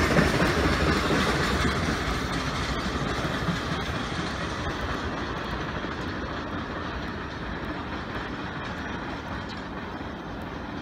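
CSX double-stack intermodal freight train rolling away on the rails, its cars rumbling with faint wheel clicks, fading steadily as it recedes.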